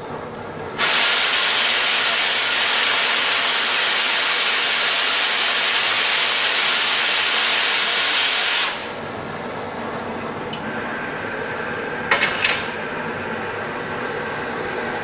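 Mechanized oxy-fuel cutting torch gas hissing loudly for about eight seconds, starting and stopping abruptly, then a quieter steady gas flow with a few sharp pops about twelve seconds in.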